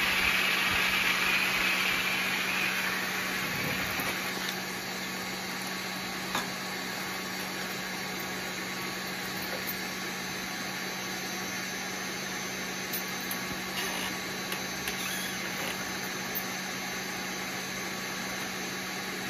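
Supplied-air respirator blower running steadily with a low hum, air hissing out through the hose and airflow gauge. The hiss fades about four seconds in, and a few light clicks of the hose fittings being handled follow.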